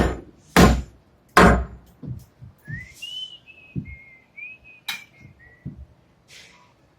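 A person whistling a short wavering tune for about three seconds, after three loud sharp knocks and some lighter ones.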